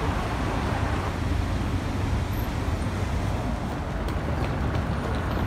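City street traffic: a steady low rumble of passing cars and buses with road noise.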